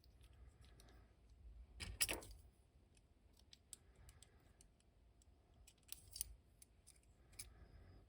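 Faint clicks and taps of small hard plastic action-figure parts being handled and pried apart, loudest about two seconds in and again around six seconds.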